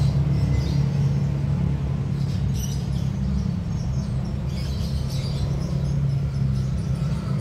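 A steady low mechanical hum runs throughout, with a few faint high chirps about two and a half and five seconds in.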